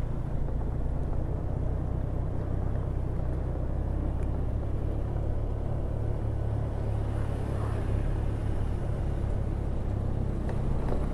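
Motor scooter's engine running steadily during riding, with a low steady rumble of wind and road noise on the microphone.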